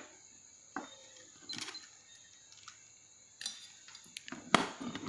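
Scattered clicks and light knocks from a Hioki clamp meter and its test leads being handled as the lead plug is pushed into the meter's sockets. A sharp click about four and a half seconds in is the loudest.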